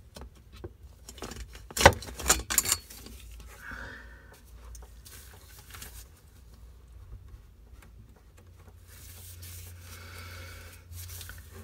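Red strap oil-filter wrench clacking and scraping against a new Motorcraft FL-820S oil filter as it is given a final tightening turn and the wrench is taken off, with a few sharp knocks about two seconds in. Quieter rubbing and handling of the filter follows.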